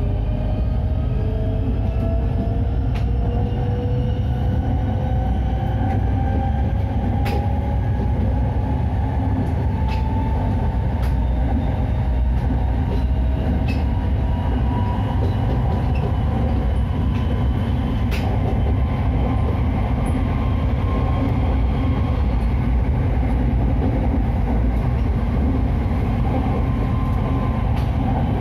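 Inside a State Railway of Thailand Red Line electric commuter train (Hitachi AT100) running on the elevated track: a steady low rumble of wheels and car. Over the first ten seconds or so the traction motors' whine rises in pitch as the train accelerates, then holds level. A few faint ticks come from the running gear.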